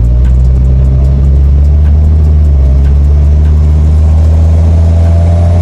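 1.3-litre car engine and exhaust running with a steady low drone under light throttle, heard from inside the cabin; the owner calls it the car's "fart" sound.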